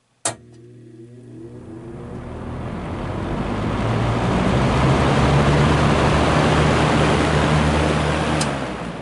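Vintage Brentwood box fan switched on with a sharp click: its motor hums at once, then the rush of air builds slowly over several seconds as the dry-bearinged blades come up to speed, holds steady, and starts to die away after a second click near the end. The motor badly needs oiling, which keeps it from reaching full speed.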